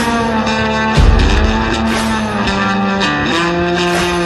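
Background rock music led by a guitar, its held notes bending in pitch, with a heavy bass hit about a second in.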